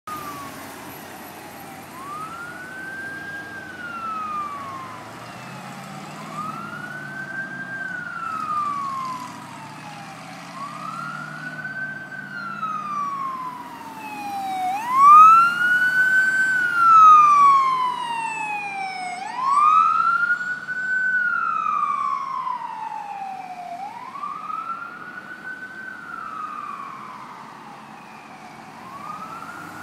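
Ambulance's Carson electronic siren in wail mode, sweeping slowly up and down about every four seconds. It grows louder toward the middle as the ambulance approaches, then fades as it moves on.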